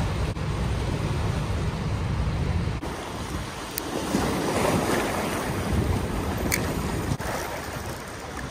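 Turbulent river water rushing and churning below a dam spillway. The first few seconds are mostly a low wind rumble on the microphone, and the water sound comes up fuller about three seconds in.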